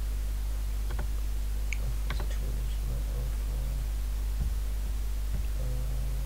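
Steady low electrical hum, with a few light clicks about one and two seconds in.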